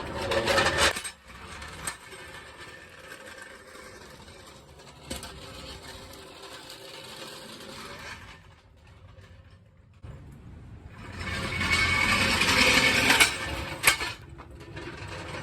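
Hydraulic floor jack being lowered and handled, its metal parts clanking and rattling, with a louder stretch of rattling near the end and a sharp clank after it.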